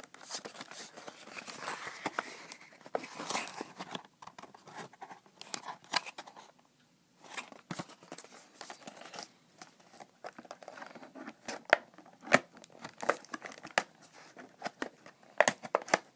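Clear plastic Beyblade packaging crinkling and crackling in the hands as it is handled and pulled at to open it, in irregular bursts with a short pause about halfway through.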